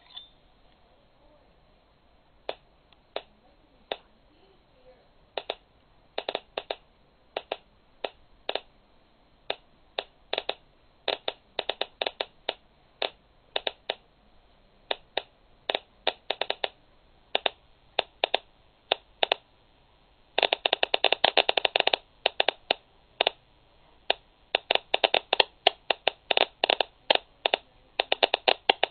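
Geiger counter clicking as its probe detects radiation from a uranium (U-238) 'AA' cell: scattered single clicks at first, coming faster and faster, with a dense rush of clicks about two-thirds of the way through and rapid clicking near the end.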